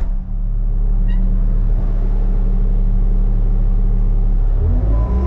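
Bobcat skid steer's diesel engine running steadily, heard from inside the operator's cab. Near the end the engine note rises and grows louder.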